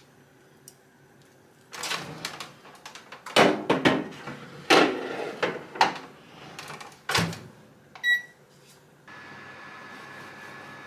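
Kitchen clatter of dishes and a door or lid being handled, then a single short electronic beep, after which a kitchen appliance starts running with a steady hum.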